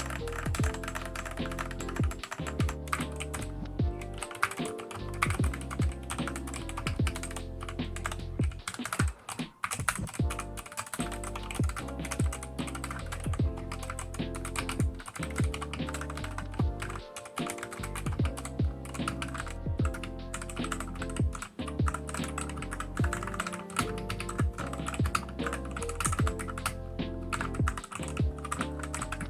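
Continuous typing on a Redragon Kumara mechanical keyboard fitted with Akko switches and PBT pudding keycaps: a dense run of keystroke clicks, briefly pausing about nine seconds in, over background music.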